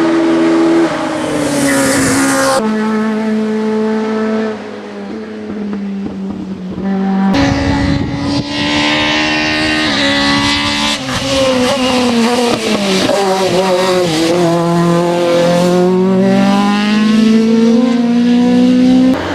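Opel Kadett E hill-climb race car's engine driven hard, its pitch holding, stepping and falling through gear changes and braking, then climbing steadily under acceleration near the end. A sudden change in the sound about seven seconds in.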